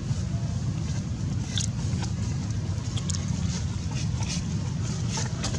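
Steady low outdoor rumble, with scattered short, faint clicks and crackles throughout.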